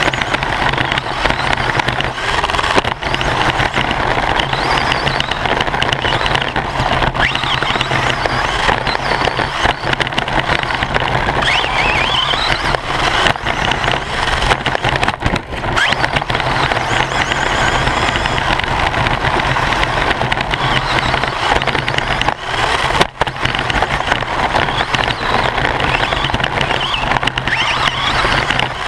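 Radio-controlled short course buggy racing on a dirt track, heard from a camera mounted inside its body: motor whine rising and falling with the throttle over the continuous clatter of the drivetrain and tyres.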